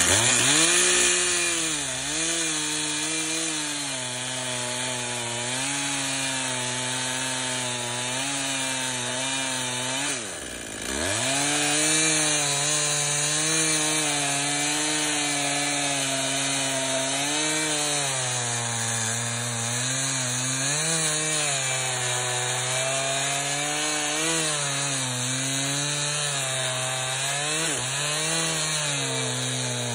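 Two-stroke chainsaw cutting slowly through a log under load, its engine note sagging and recovering as the bar bites, with a chain that looks a bit dull. About a third of the way through, the engine speed drops sharply and then picks up again.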